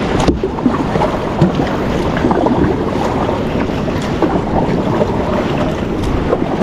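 Wind buffeting the microphone over water splashing and lapping against a plastic kayak's hull as it is paddled through choppy sea, a steady rough rush with quick small splashes all through.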